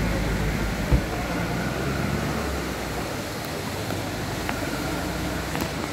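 Road traffic rumble over a steady background hiss, the low rumble easing off after about three seconds, with a single sharp thump about a second in.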